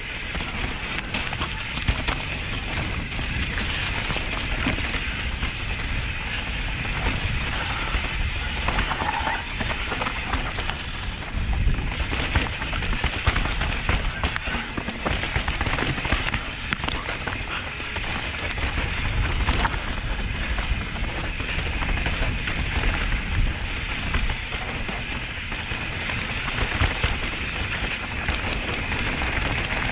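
Mountain bike descending a dirt singletrack at speed, heard from a camera on the rider: a constant rush of wind over the microphone, tyres crackling over leaves, gravel and rocks, and frequent knocks and rattles from the bike over bumps.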